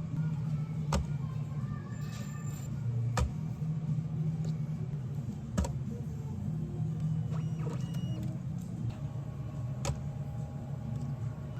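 Steady low machine hum with a few sharp clicks or knocks spaced several seconds apart.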